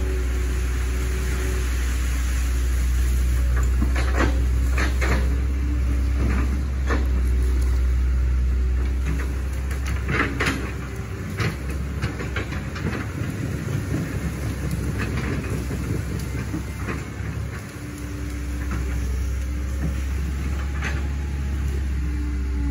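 Hitachi Zaxis 110 excavator's diesel engine running steadily as a low drone, with scattered sharp knocks and clanks from the working machine, most of them in the middle. The drone turns unsteady for a while, then settles back near the end.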